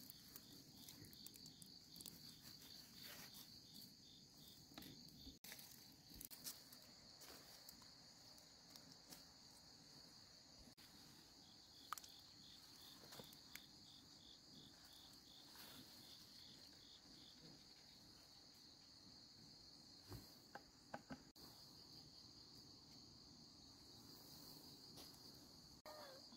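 Faint, steady, high-pitched insect chirring, with a few soft knocks from about the middle on.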